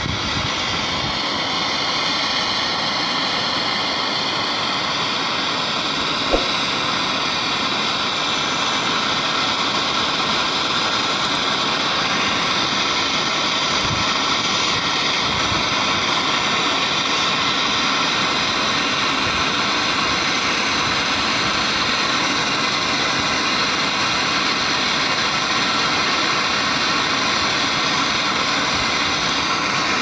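Gas brazing torch burning with a steady hiss, heating a brazed copper pipe joint on an air conditioner's outdoor unit so the pipe can be pulled off with pliers. There is one sharp click about six seconds in.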